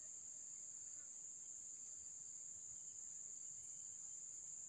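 Faint, steady high-pitched drone of insects, with no other sound standing out.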